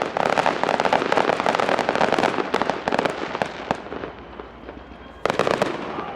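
Fireworks going off in a dense, rapid crackle that thins out and fades about four seconds in, then a fresh burst of crackling near the end.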